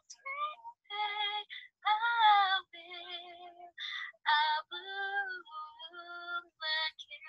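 A woman singing the wordless "la la la" refrain of a ballad, in a string of short sung notes with brief breaks between them.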